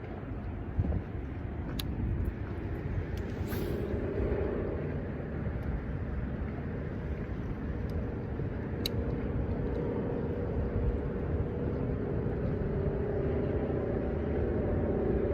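Steady low rumble of a distant motor with a faint hum, and a few small clicks.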